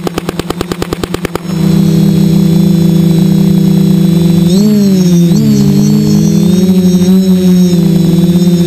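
Quadcopter's electric motors and propellers whining steadily. The hum cuts out into a rapid stutter for about the first second and a half. Around the middle the pitch dips and wavers as the throttle changes, then steadies.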